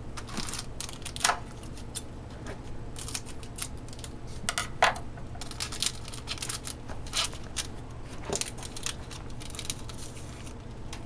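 Hockey card pack wrapper crinkling and cards being handled and slid against each other: a scattered run of short, dry crinkles and clicks.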